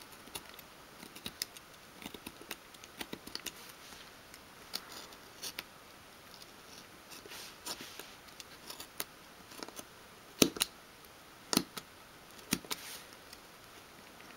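Craft knife tip scoring a curved line into thin wood sheet in short, repeated scratching strokes, going over the line again to cut it deeper. A few strokes near the end are louder.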